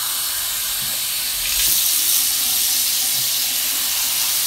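Bathroom sink faucet running with a steady hiss, getting a little louder about one and a half seconds in.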